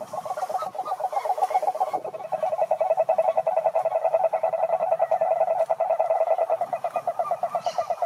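Male cane toad giving its long advertisement call: a steady, low, rapidly pulsed trill that gets louder about two seconds in.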